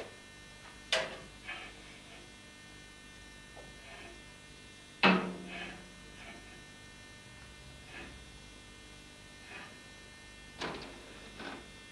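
Steel bar knocking and clanking against the pins of a bending jig clamped in a bench vice as it is levered round by hand; the loudest knock, about five seconds in, rings briefly. A steady electrical hum runs underneath.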